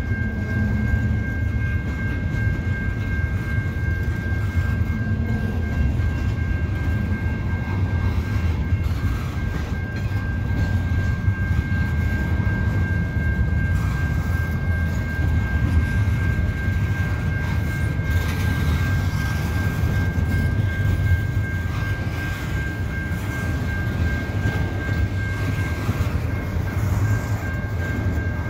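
Double-stack intermodal freight train of loaded well cars rolling past, a steady low rumble of wheels on rail. A steady high-pitched tone sounds over it.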